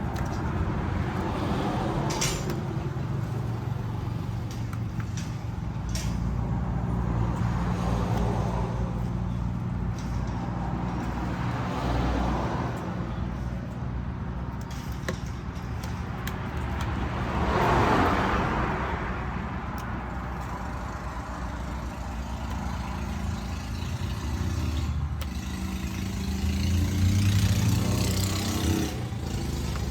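An engine running steadily, with swells of noise that rise and fade, the loudest about two-thirds of the way in.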